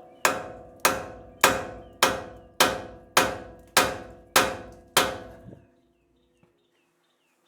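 Sledgehammer blows on the steel of a 1996 Ford F150's steering, striking a seized tie rod end from the top with its castle nut left on, to shock the tapered stud loose from the knuckle. About nine ringing metal-on-metal strikes, roughly one every 0.6 seconds, stop about five and a half seconds in.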